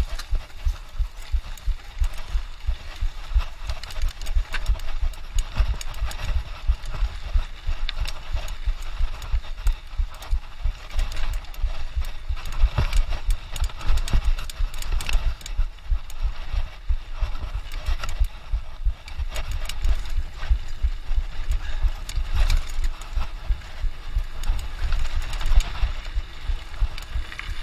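Mountain bike rattling and knocking over rough trail, with a constant low rumble of wind buffeting the microphone.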